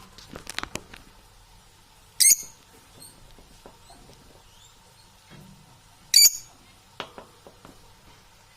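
Parrot giving two short, sharp, high-pitched calls about four seconds apart, the loudest sounds here, with a few clicks near the start and faint chirps in between.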